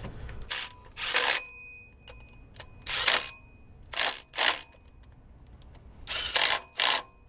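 Cordless impact wrench run in about six or seven short trigger bursts, snugging the 10 mm water pump bolts on a Chevy Colorado inline-4 with a light trigger rather than to a torque spec.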